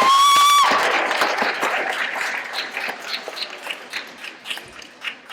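An audience of schoolchildren clapping and cheering. A shrill, high held cheer cuts off under a second in, and the clapping then thins out and fades.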